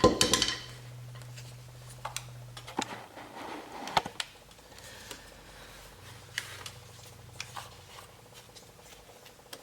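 Scattered small clicks, taps and light scraping of gear being handled, with a louder clatter right at the start and a faint low hum in parts; no grinder running.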